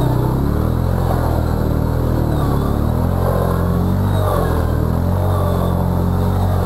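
Arctic Cat 700 ATV engine running steadily as the quad rides through muddy water.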